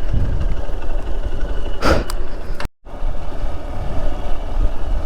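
Hero Xpulse motorcycle running with a heavy rumble of wind on the microphone. About two and a half seconds in, the sound drops out completely for a moment.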